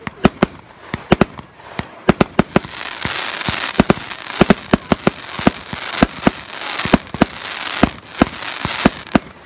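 Fireworks launching shot after shot from one point, each a sharp report, about two a second. From about three seconds in, a steady crackling hiss builds under the reports as the stars burst.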